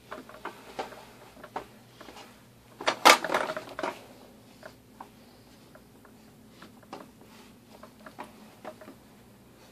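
Plastic push walker toy rolling over carpet, its wheels and plastic parts giving scattered light clicks and rattles, with a louder clatter about three seconds in.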